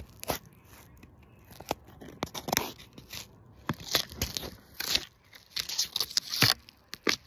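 Close handling noise: an irregular string of clicks, scrapes and crackly rustles right at the microphone, busier in the second half.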